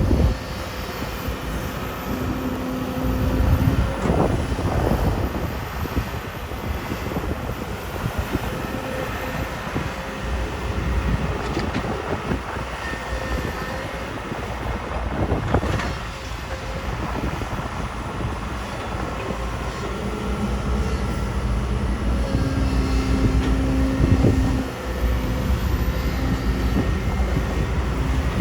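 Kobelco SK250 hydraulic excavator's diesel engine running under load while digging and loading, its pitch rising as the hydraulics are worked, with three sharp thuds about four seconds in, near the middle and near the end.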